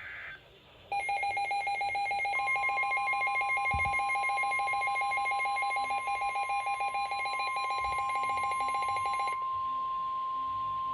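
NOAA Weather Radio's steady 1050 Hz warning alarm tone, starting about two seconds in, heralding a severe thunderstorm warning. Over it a rapidly pulsing electronic alert beep starts about a second in and stops about a second and a half before the end.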